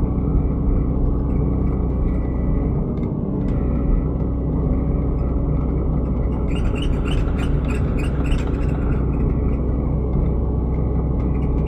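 Excavator diesel engine running steadily under work, with a run of clicks and short squeaks from the machine about halfway through.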